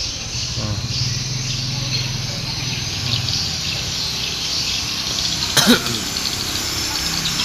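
Steady hiss of rain falling in strong wind, with a low steady hum underneath. A little over five seconds in, a brief sharp sound with a quick gliding tone stands out as the loudest moment.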